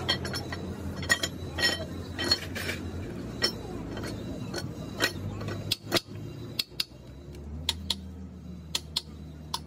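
Metal tools and engine parts clinking and tapping irregularly, a dozen or so sharp metallic clicks over a low steady hum.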